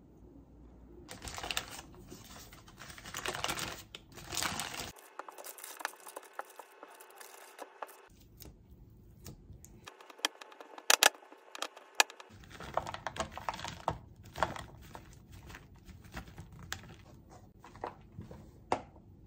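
Clicks, taps and scrapes of kitchen utensils on cookware: a spoon against a skillet, then a silicone spatula mashing butter against a glass mixing bowl, with a few sharp clinks around the middle.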